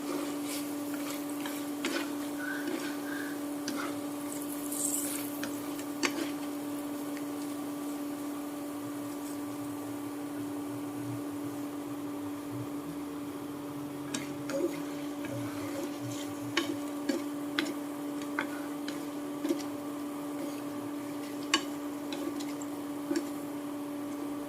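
Coated goby fish frying in a pan of oil, with scattered sharp crackles and clicks over a steady low hum.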